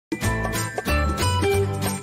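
Intro music with a steady beat, bass notes and bright high percussion, starting just after the opening silence.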